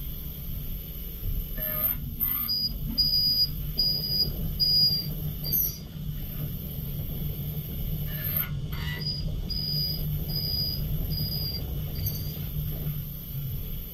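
Fanuc RoboDrill CNC mill cutting under flood coolant: a steady spindle hum with coolant spraying. The cutter gives short, high squeals about one to two a second, in two runs of about four.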